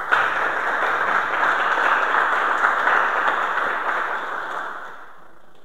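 Audience applauding, starting at once and tapering off about five seconds in.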